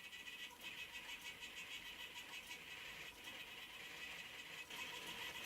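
Faint, steady high-pitched whine from the small geared DC motors of a homemade CNC machine driving its axes.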